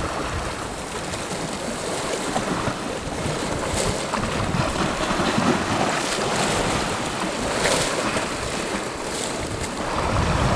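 Sea surf washing against shoreline rocks, a steady rushing noise, with wind buffeting the microphone.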